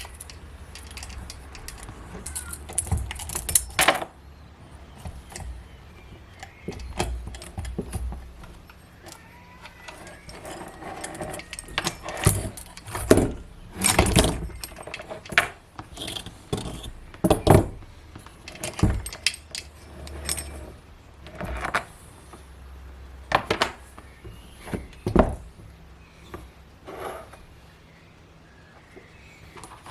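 Irregular metallic clinks, knocks and clatter from chainsaw parts and hand tools being handled and set down during cleaning.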